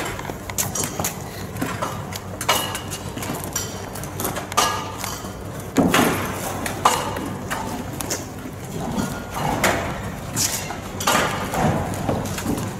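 Irregular knocks and thuds, about one every second or so, over a steady low hum.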